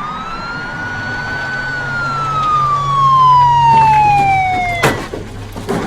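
Police car siren wailing in one slow rise and long fall over a low engine rumble, cutting off suddenly with a sharp knock about five seconds in.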